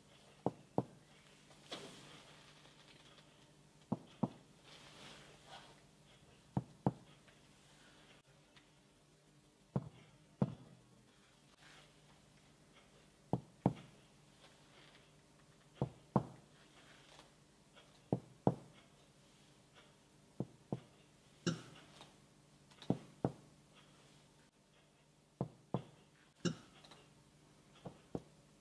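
Chest percussion: a finger tapping the middle finger laid flat on a bare chest wall. It gives short dull thuds, mostly in pairs, one pair every two to three seconds as each point on the chest is tapped.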